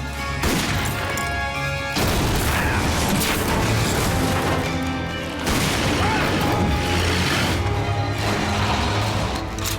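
Film action soundtrack: a dramatic orchestral score mixed with heavy crashes and booms. The sound gets suddenly louder and denser about two seconds in, and again a little past halfway.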